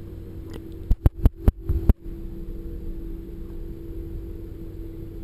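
Underwater ambience heard through a submerged camera: a steady low hum, broken about a second in by a quick run of sharp knocks lasting about a second.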